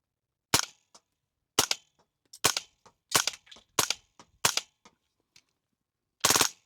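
Suppressed .22 LR AR-style rifle fired semi-automatically through a Lone Wolf Arms Eliminator22 suppressor: about seven sharp shots, roughly one a second with a longer pause before the last.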